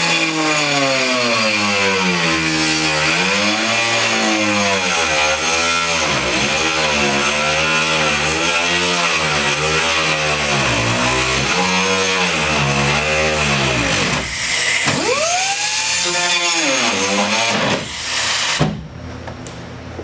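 A 4-inch diamond saw cutting through a fiberglass boat deck: the motor's whine dips and recovers over and over as the blade bites into the cut, over a steady hiss of cutting. Near the end it rises and falls once more, then stops.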